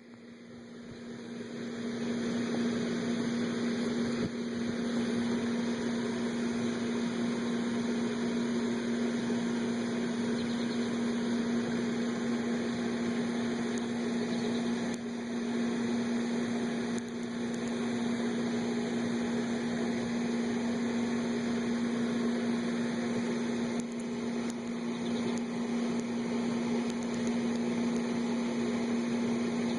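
A steady machine-like hum with one strong low tone, fading in over the first two seconds and then holding level, with a few faint clicks.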